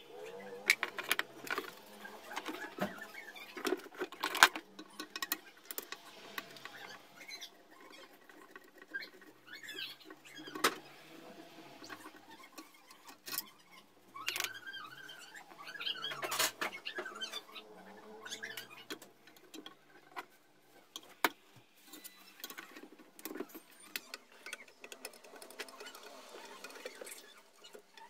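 Hands working inside a disassembled electric planer's plastic housing: irregular clicks, taps and scraping of small metal parts and tools against the housing and workbench, with a few sharper clicks scattered through.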